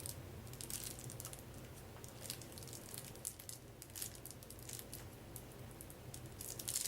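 Plastic shrink-wrap being torn off and crinkled from a sealed pack of cards, a run of small crackles with a louder burst of crinkling near the end.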